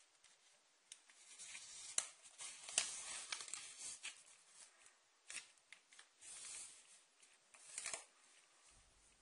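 Faint rustling and swishing of a sheet of paper being folded up and its crease pressed flat by hand, in a few short spells, the sharpest about two seconds, three seconds and eight seconds in.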